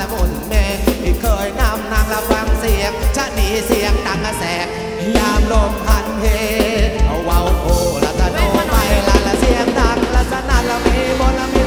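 Live Thai ramwong dance band playing upbeat music, with a steady heavy bass-drum beat and a wavering melody line over it.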